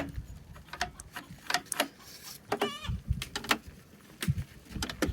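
Scattered clicks and knocks from handling a door and its newly fitted metal latch, with a brief wavering squeal about two and a half seconds in.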